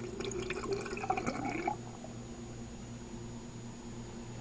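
Water being poured from a carafe into a home espresso machine's water tank, stopping about two seconds in.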